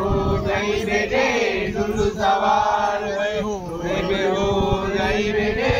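Men chanting a Muharram lament in Urdu in long, drawn-out sung lines.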